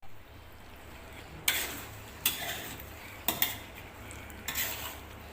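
A metal utensil stirring food in a pan: about five sharp clinks and short scrapes, roughly a second apart.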